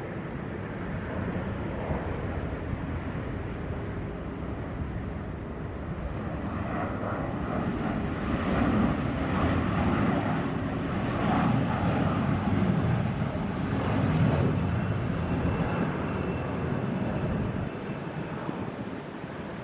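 Aircraft passing overhead: a rumble that builds to its loudest in the middle and then fades away.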